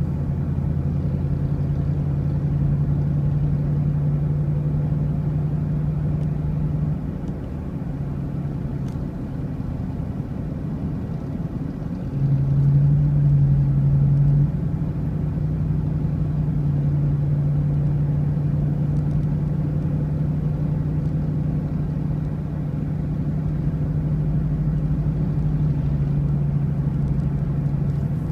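Car engine and road noise heard from inside the cabin while driving: a steady low drone that eases off for a few seconds, then swells louder briefly around the middle.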